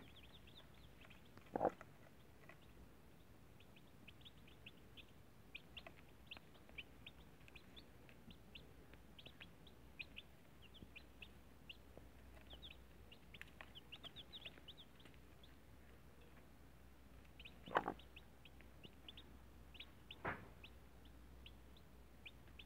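Newly hatched chicks peeping, many short high cheeps all through, with a broody hen clucking low three times, once near the start and twice near the end, the hen's clucks the loudest sounds.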